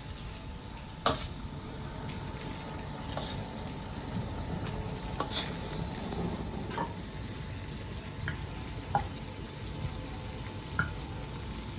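Cassava leaves sizzling in a wok over a gas flame while a spatula stirs them, with several sharp clinks of the spatula against the wok, the loudest about a second in.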